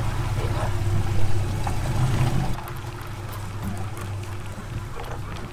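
Boat's outboard engines idling as a steady low hum, with wind and water noise over it. The sound drops to a quieter hum about two and a half seconds in.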